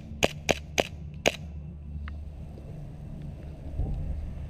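Gas blowback airsoft pistol, a Tokyo Marui 1911 MEU, fired five times in quick succession as sharp cracks within about a second and a half. The last shot comes after a slightly longer gap.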